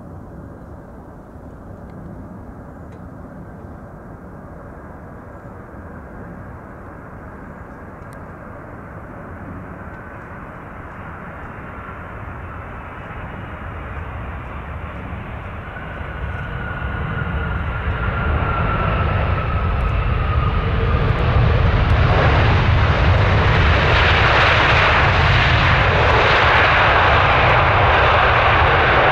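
Jet airliner's engines growing steadily louder over about twenty seconds, with a whine that slides down in pitch. The last several seconds are loud, steady jet noise.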